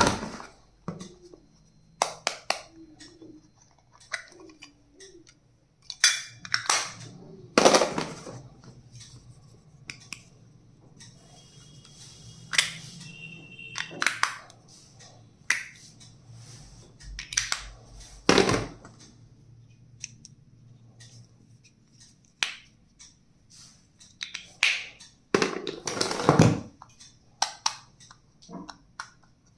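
Small plastic stationery items being handled and set down: irregular clicks, taps and knocks, with a brief squeak about halfway through.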